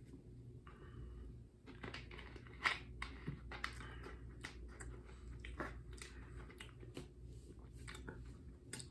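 Faint, irregular clicks and crinkles of a plastic soda bottle being handled and its cap twisted, with quiet chewing of a marshmallow Peep.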